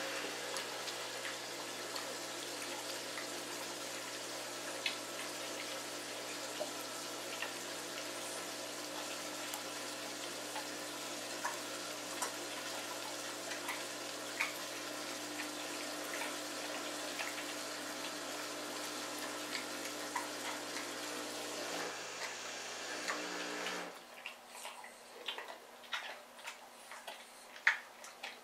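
Shar-Pei puppy chewing raw chicken ribs: scattered sharp crunches and clicks of bone breaking between its teeth. Under them runs a steady hiss with a low hum, like running water or an appliance, which stops suddenly about four seconds before the end.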